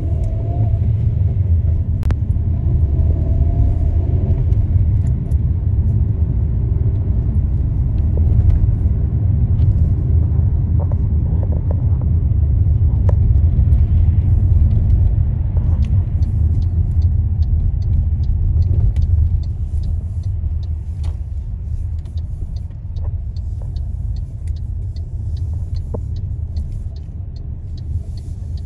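Road noise heard inside a moving car's cabin: a steady low rumble of engine and tyres, easing a little about two-thirds of the way through, with a few faint ticks later on.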